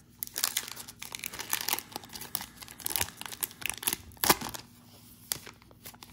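Crinkling and crackling of plastic trading-card packaging being handled: a dense run of crackles for about four and a half seconds, the sharpest about four seconds in.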